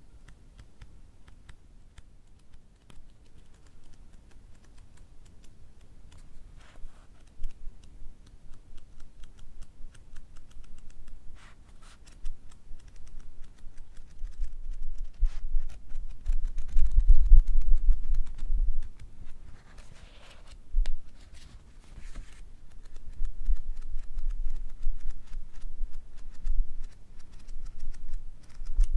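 Pages of a paperback book being riffled through quickly: a rapid flutter of small papery clicks. It grows louder partway through, with heavy low thuds from the book being handled close to the microphone.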